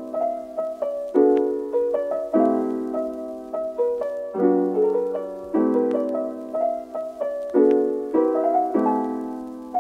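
Background music: gentle solo piano, slow chords struck about once a second and left to ring and fade.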